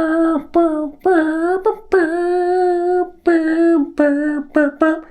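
A single voice singing a short unaccompanied tune: a long held note, then several shorter notes that bend in pitch, ending on quick notes.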